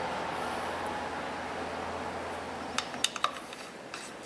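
Small metal hand tools and bits clinking against each other and a metal tool tray: a handful of light, sharp clinks in the second half.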